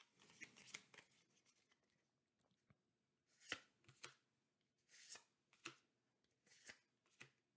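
Faint, short swishes of MetaZoo trading cards sliding over one another as a pack is flipped through one card at a time, a brush every second or so.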